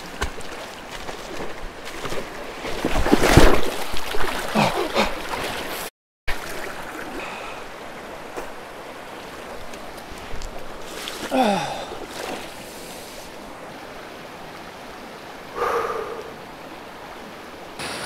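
Creek water rushing steadily over rocks, with loud splashing about three seconds in as a person falls face first into the stream. Short falling-pitch vocal sounds follow near the middle and again near the end.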